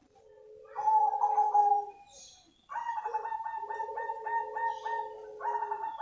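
Black cemani zebra dove (perkutut) singing its cooing song: a short phrase about a second in, then from about three seconds in a longer run of quick, evenly repeated coos, about three a second.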